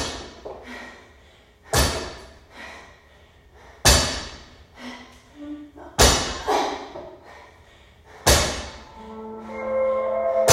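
Loaded barbell with rubber bumper plates dropped onto rubber gym flooring after each rep, a sharp thud about every two seconds with a short ring after each. Background music plays underneath.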